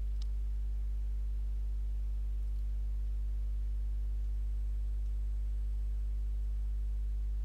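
Steady electrical mains hum, a low buzz at about 50 Hz with its overtones, from the recording chain. A faint click about a fifth of a second in.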